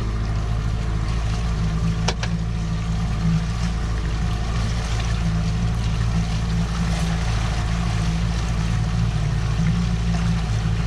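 Fishing boat's motor running steadily while the boat is underway, with a single short click about two seconds in.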